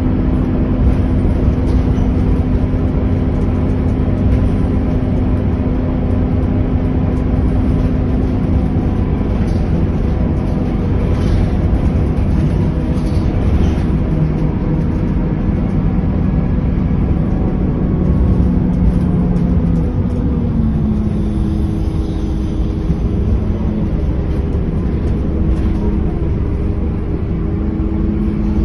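Interior sound of a Scania K230UB city bus on the move: its five-cylinder diesel engine runs under a steady rumble of road and tyre noise, with light rattles from the cabin. The engine note changes about two-thirds of the way through.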